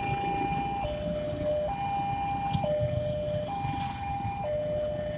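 Railway level crossing warning alarm sounding its two-tone signal, a higher and a lower tone alternating about once a second, over the low running of waiting motorcycle engines.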